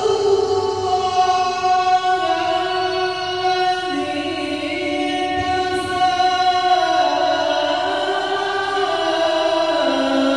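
A man's voice chanting verses of the Qur'an in a melodic recitation style, holding long, ornamented notes that step down in pitch a few times.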